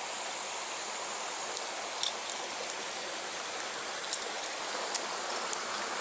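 Steady rushing of a small rocky stream, with a few light, sharp clicks scattered over it.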